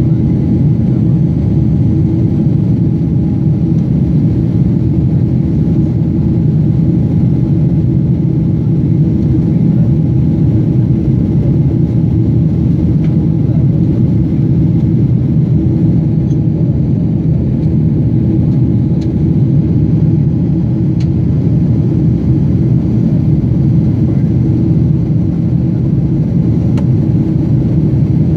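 Steady, loud rumble of a jet airliner in flight heard from inside the cabin: engine and airflow noise, with a faint steady hum running through it.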